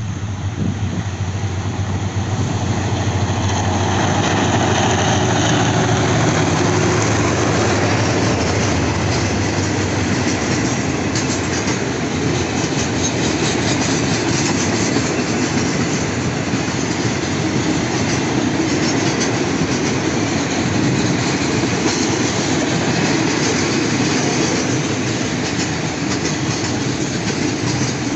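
Long freight train of oil tank wagons rolling past, hauled by a GEA-class diesel-electric locomotive. A low engine drone grows louder over the first few seconds and fades out about ten seconds in, giving way to steady wheel and rail noise with clicking as the wagons pass over the rail joints.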